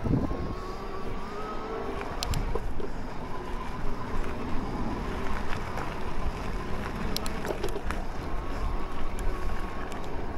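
Riding noise on an electric mountain bike's action camera: wind buffeting the microphone and tyres rolling over the track, with a faint whine that rises and falls and a few sharp clicks.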